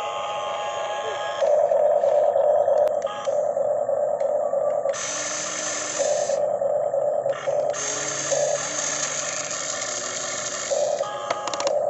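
Small electric gear motors of a radio-controlled toy excavator whining as it works, starting and stopping in runs of one to three seconds, with stretches of a harsher hiss.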